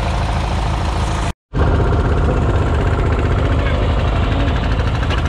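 Engine running steadily with a low rumble. It cuts out completely for a moment about a second and a half in, then carries on.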